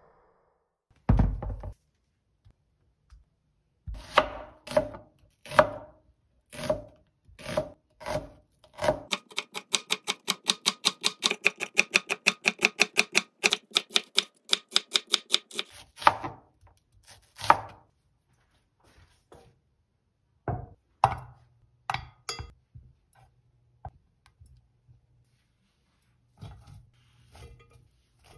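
Santoku knife slicing onion on a cutting board: a dull thump about a second in, then separate cuts a little over half a second apart, breaking into a fast, even run of about five cuts a second for some seven seconds, then a few scattered knocks of the blade on the board.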